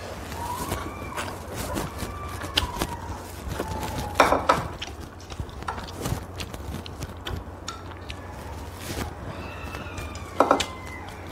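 Eating sounds: instant noodles slurped and chewed, with chopsticks clicking and scraping on ceramic bowls and the pan; two louder slurps come about four seconds in and near the end.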